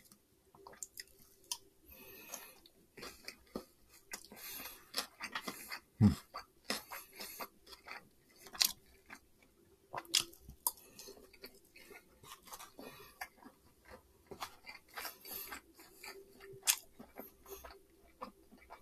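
Close-miked chewing of mouthfuls of Chinese takeout fried rice and fried chicken: irregular wet clicks and crunches with no steady rhythm.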